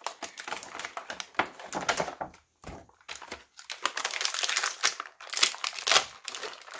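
Action figure packaging, cardboard and plastic, being torn open and crinkled by hand: irregular crackling and tearing, with a couple of short pauses.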